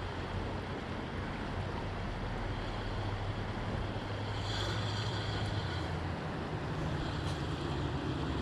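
Creek water flowing steadily, a constant rushing noise with a low rumble underneath.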